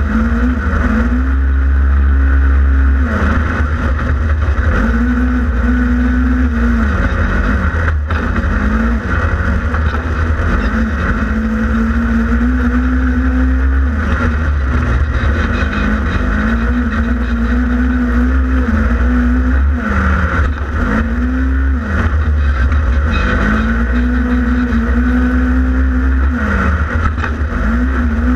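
Twin-cylinder engine of a 2015 Polaris RZR XP 1000 side-by-side being driven hard on a dirt track. The revs climb, hold steady, then drop, over and over about every three seconds, over a deep constant rumble.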